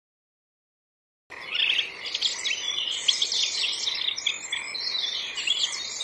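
A chorus of small songbirds chirping and twittering together, many quick overlapping high calls. It starts abruptly about a second in.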